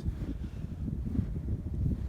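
Wind buffeting the microphone in a snowstorm: an uneven, gusting low rumble.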